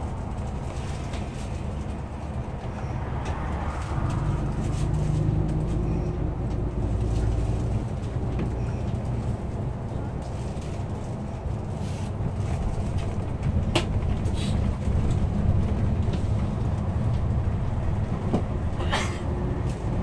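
Intercity bus heard from inside the cabin while driving: a steady low engine and road drone that swells for a few seconds as the engine pulls harder. Near the end there are a couple of sharp clicks.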